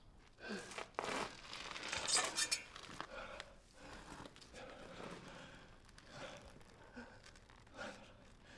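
A man panting hard to catch his breath, in short breaths about once a second, after a louder burst of rustling and gasping in the first couple of seconds.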